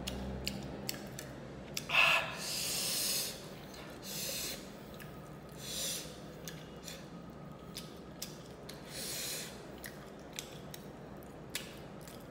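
Close-up eating sounds: sharp breaths and sniffs through the mouth and nose, the loudest about two seconds in, amid small wet clicks of fingers picking at fried fish and of chewing. The hissing breaths come while eating chili-hot fish.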